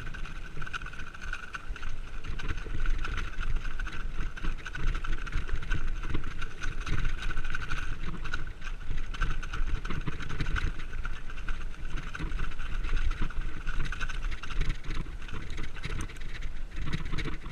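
Mountain bike ridden fast down a rough grassy singletrack, heard from a camera mounted on the bike: tyres rumbling over the ground, the frame and parts rattling over bumps, and wind on the microphone, with a steady high buzz throughout.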